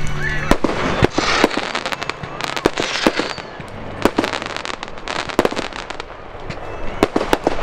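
Fireworks going off: rockets and aerial shells bang sharply again and again, with bursts of dense crackling about a second in and again around three seconds.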